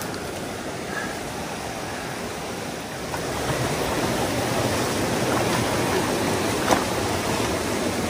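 Mountain stream rushing over boulders in small cascades, growing louder about three seconds in. A single sharp click sounds near the end.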